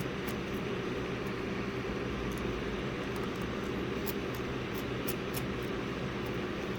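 Steady hum and hiss of a running machine or fan, with faint light clicks now and then, a few of them close together about four to five seconds in. The clicks fit small tools handling parts while a phone's logic board is taken out.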